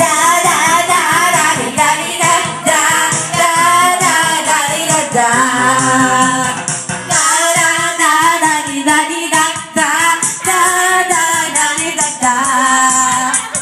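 Karaoke: female voices singing into microphones over a backing track with a steady beat.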